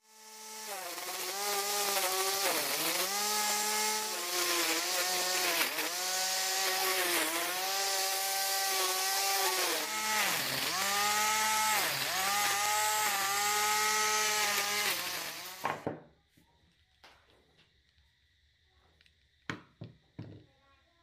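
Angle grinder converted into a grass trimmer, its motor running with a high whine whose pitch sags and recovers again and again as the cutter loads up in the grass. About 16 s in it cuts off, leaving low background with a few light knocks near the end.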